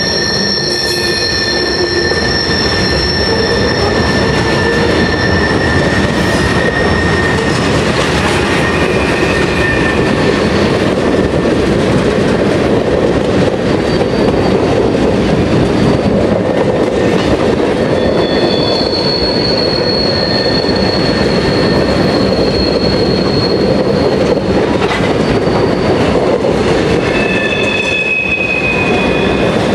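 A CSX freight train's covered hoppers and tank cars rolling past: steady rumble of wheels on rail, with high thin wheel squeals that come and go, strongest near the start, in the middle and near the end.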